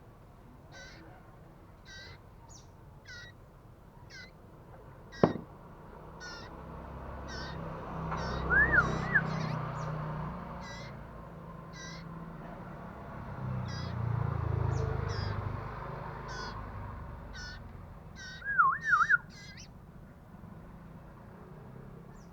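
Young iora calling: short high chirps repeated about every half second, with two louder phrases of sliding whistled notes, about nine seconds in and again near the end. A sharp click comes about five seconds in, and a low rumble swells and fades twice beneath the calls.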